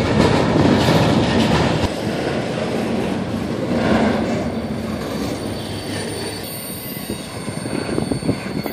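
Double-stack intermodal container train rolling past close by, its well-car wheels and trucks running over the rails. The noise fades as the last cars pass and move off, with a thin high wheel squeal about halfway through.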